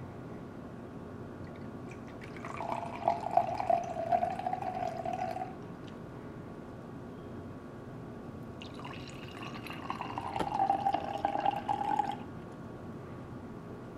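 Wine poured from a bottle into a wine glass, twice: a pour of about three seconds, then a second one into another glass a few seconds later.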